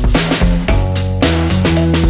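Background music with a steady drum beat and bass and guitar lines, funk-flavoured.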